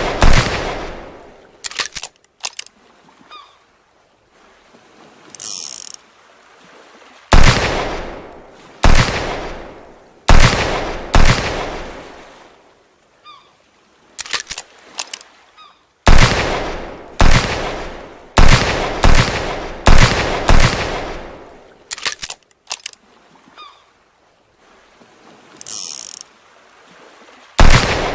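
Revolver gunshots, fired singly and in quick runs of three to six. Each is a sharp crack with a long echoing tail. The quieter gaps between runs hold small clicks and, twice, a brief high hiss.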